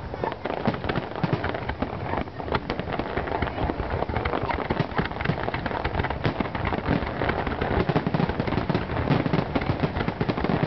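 Aerial fireworks display: a dense, continuous crackling and popping of many shells and crackling stars bursting at once, with heavier bangs mixed in.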